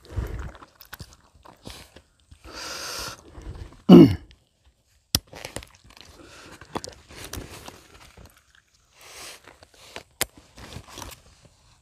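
Clicks and rustles of a small bag and its straps being handled by gloved hands, with a longer rasping rustle about two and a half seconds in. About four seconds in comes the loudest sound: a short, loud vocal grunt that falls in pitch.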